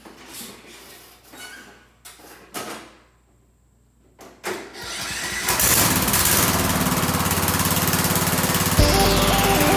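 Kohler Courage 20 single-cylinder engine of a Toro LX460 lawn tractor being started. A few knocks and rustles come first as the rider climbs on. About four and a half seconds in the engine is cranked, catches and runs steadily and loudly, and its note changes near the end.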